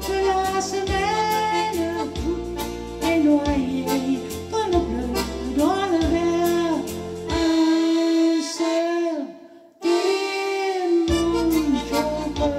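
Older woman singing a French chanson into a microphone, accompanying herself on an electronic keyboard with a bass and chord backing. The backing drops out about seven to eight seconds in, the music fades almost to nothing just before ten seconds, then picks up again.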